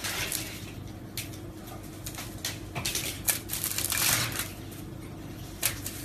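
Aluminium foil crinkling and crackling in irregular spells as a cat paws at it, loudest about four seconds in, over a steady low hum.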